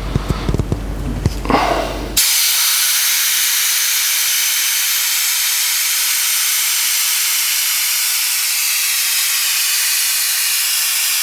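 A few clicks and knocks of a wrench being set on a brake bleeder screw, then, about two seconds in, a pneumatic vacuum brake bleeder starts hissing loudly and steadily as it runs on compressed air, drawing old brake fluid out through the caliper's bleeder screw.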